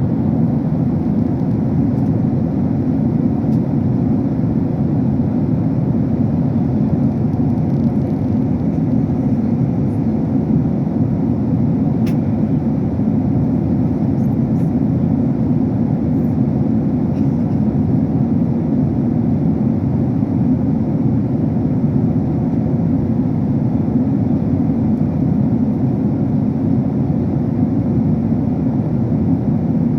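Steady low rushing drone of a jet airliner's cabin in flight: engine and airflow noise heard from inside the passenger cabin.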